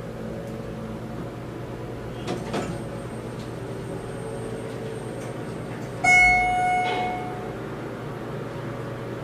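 Elevator car with a steady machinery hum and a couple of faint clicks. About six seconds in, a single loud electronic chime tone sounds and fades out within a second.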